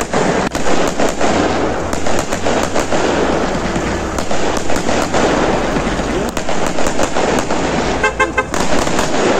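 Aerial fireworks bursting overhead: a string of sharp, irregular cracks and bangs over a steady crackle. About eight seconds in there is a brief rapid tooting.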